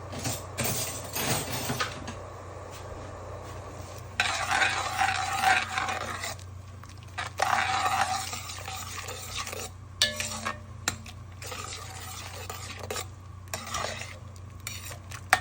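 A utensil stirring in a cooking pot, with scraping passages and scattered clinks against the pot.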